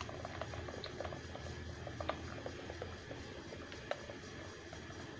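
Thick, freshly cooked condensed milk pouring in a slow stream from a pot into a glass bowl, a soft scatter of small liquid plops and pops, with one sharper click about four seconds in.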